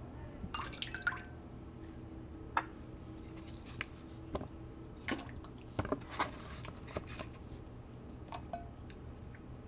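Slices of lotus root and burdock being put by hand into a glass bowl of vinegar water: irregular small splashes and drips, about a dozen over the seconds.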